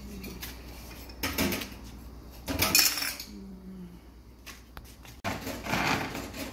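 A metal spoon clinking and scraping against a glass salt jar and a metal pressure cooker as salt is spooned in: a few short clinks, the loudest about two and a half seconds in, then a longer scrape near the end.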